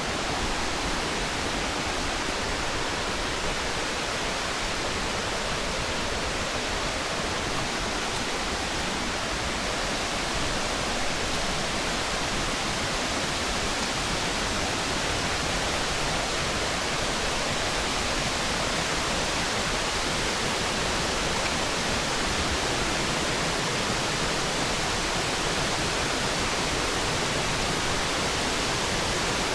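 Steady rushing roar of a waterfall and its creek, a dense, even wash of falling water.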